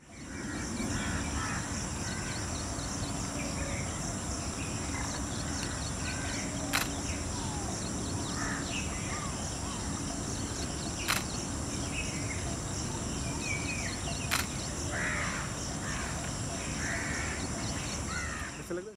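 Outdoor nature ambience: birds giving short chirps and calls over a steady high-pitched hum, with three sharp clicks spread through the middle.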